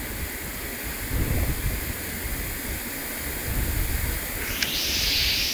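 Heavy rain falling steadily, with a low rumble swelling underneath. About four and a half seconds in there is a sharp click, and a louder hiss sets in.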